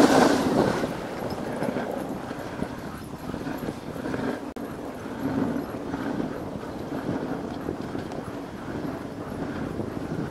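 A dog sled moving over packed snow behind a running husky team: the runners sliding on the snow and the dogs' feet on the trail, a steady noise with a louder rush of noise in the first second.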